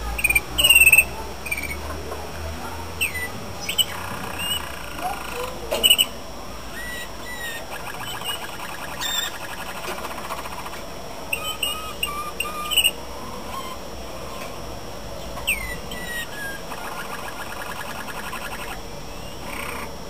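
Male Malinois (Waterslager) canary singing: rolling trills and short gliding whistled notes, with a few sharp clicks.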